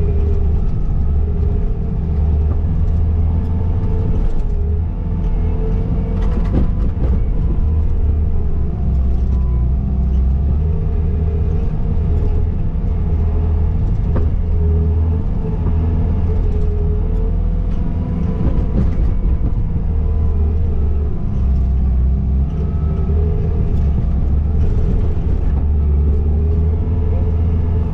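Skid steer's engine running steadily under load as it works a snow pile, with a deep rumble, a wavering whine over it and a few short knocks. The machine is struggling for traction.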